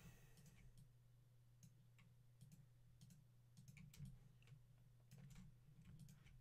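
Faint, irregular computer mouse clicks, the loudest about four seconds in, over a low steady hum; otherwise near silence.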